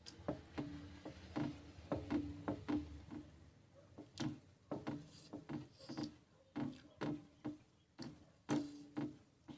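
Eating sounds from two people eating rice by hand from steel plates: irregular quick wet smacks and clicks of chewing, with fingers working the rice on the metal plates.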